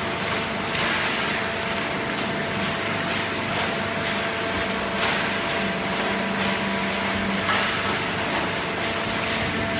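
Hydraulic baling machine running: a steady motor and pump hum with a few faint knocks.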